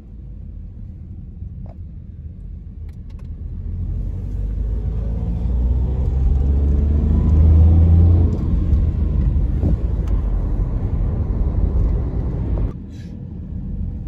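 Car engine and road noise heard from inside the cabin, building as the car accelerates with the engine note rising, loudest about eight seconds in, then dropping off abruptly near the end.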